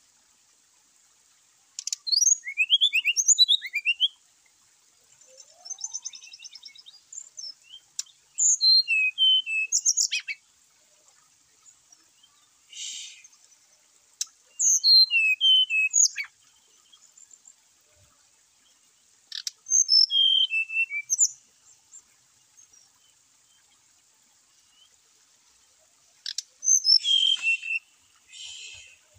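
A brown-chested jungle flycatcher singing: short phrases of quick, high whistled notes, many falling in pitch, every few seconds. Two short rasping notes come between the phrases.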